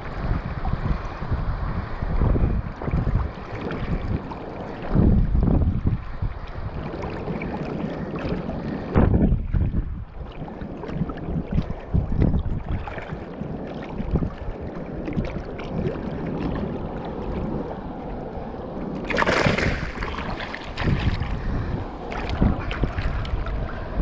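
Wind buffeting the microphone, with low thumps, and sea water sloshing around a rubber inner-tube float. A louder burst of noise comes about three-quarters of the way through.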